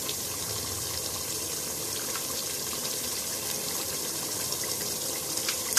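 Chicken, onion and tomato sizzling and simmering in a metal pot, a steady even hiss.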